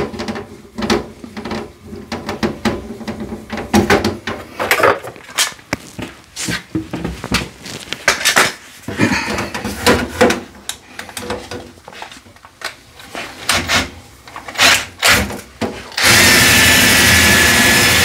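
Dryer vent cleaning rods being drawn back down through the vent pipe, rattling and scraping in irregular knocks. About sixteen seconds in, a loud steady motor sound starts.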